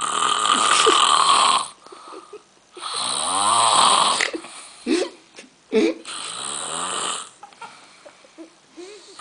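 A man snoring heavily: three long snores about three seconds apart, the middle one with a fluttering rattle, and short quieter breaths in between.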